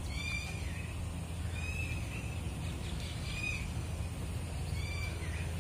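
A bird calling over and over, one short high call about every second and a half, over a steady low hum.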